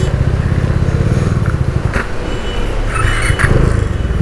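Motorcycle engine running steadily at low speed while the bike rolls slowly along, heard from the rider's seat as an even, rapid low beat of exhaust pulses.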